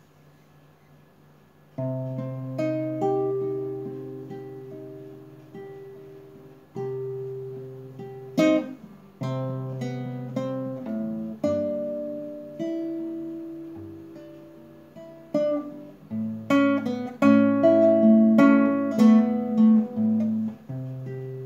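Classical guitar played solo without singing, starting about two seconds in: picked chord notes that ring and fade, with a few sharp strummed chords, busier and louder near the end.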